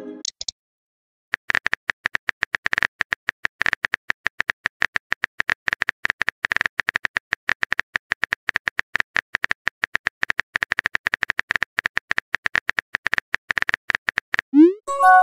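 Keyboard clicks from a texting app, a fast, uneven stream of short taps as a message is typed. Near the end, a quick rising whoosh and short chime as the message is sent.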